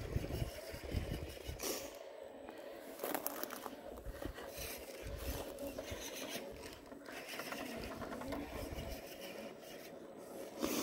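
Axial SCX10 II radio-controlled crawler working its way over stone slabs: tyres scraping and grinding on rock in short, irregular strokes over a faint steady electric drivetrain whine.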